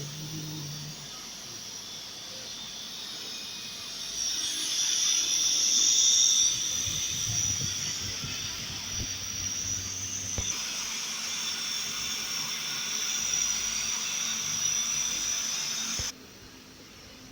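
Schaudt camshaft grinding machine at work, its grinding wheel on a camshaft making a steady high-pitched hiss. It swells about four seconds in and cuts off sharply near the end.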